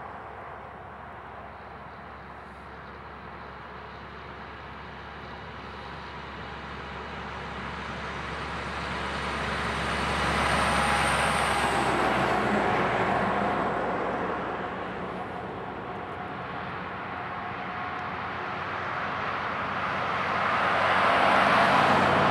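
Road traffic going by: an escort vehicle's tyres and engine swell and pass about halfway through, then a heavy-haul tractor's Caterpillar diesel and tyres grow louder as it approaches near the end.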